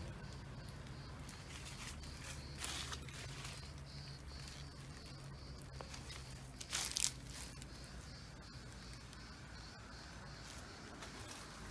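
Faint outdoor background: a steady low hum and a faint high steady tone, broken by a few brief rustles, the loudest about seven seconds in.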